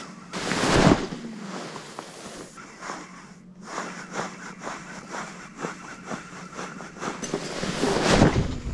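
Wind buffeting the microphone, swelling about a second in and again near the end, with a run of light clicks in between.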